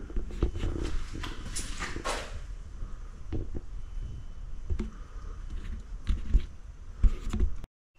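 Faint scuffs and clicks of a handheld camera being handled and of footsteps, with two short breathy sounds about a second and a half in. The sound cuts out abruptly just before the end.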